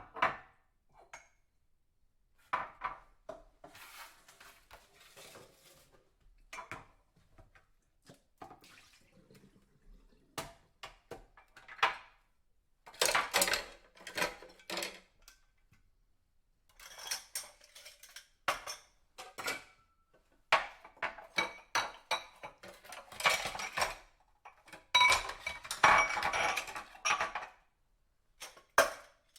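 Dishes and cutlery being washed by hand: irregular clinks and clatters of plates and silverware knocking together, with brief splashes of water, coming in bursts with short pauses between.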